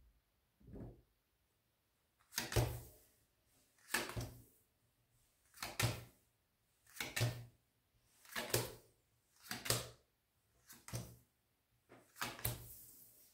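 Lenormand cards being laid down one at a time on a wooden table: a short slap or knock with each card, about eight in all, roughly every second and a half.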